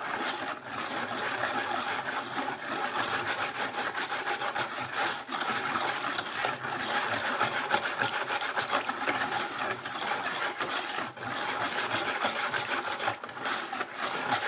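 Wire balloon whisk stirring used cooking oil and lye water in a plastic bucket: a steady scraping and swishing, with brief pauses a few times. This is the hand-mixing of cold-process soap batter on its way to trace.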